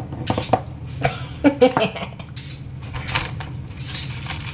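Kitchen handling noises: a few sharp knocks and clinks of utensils and dishes in the first two seconds, then the rustle of a plastic food bag, over a steady low hum.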